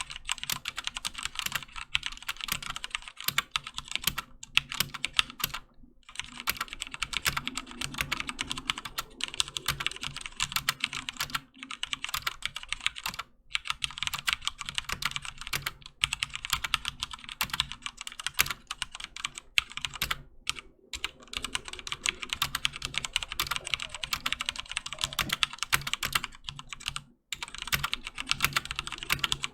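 Fast, continuous typing on a HyperX Alloy FPS Pro mechanical keyboard with Cherry MX Red linear switches: dense runs of key clacks, broken by a few brief pauses.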